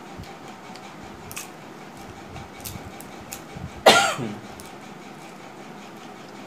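Quiet eating by hand with a few faint clicks, then, about four seconds in, one loud short cough-like vocal sound that falls in pitch.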